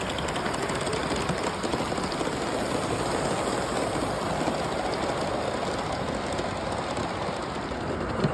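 Large-scale model steam train running along the track: a steady mechanical rolling clatter.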